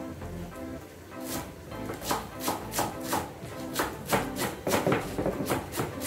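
Kitchen knife chopping spring onions and coriander on a wooden cutting board: a run of quick knife strikes, about three a second, starting about a second in, over background music.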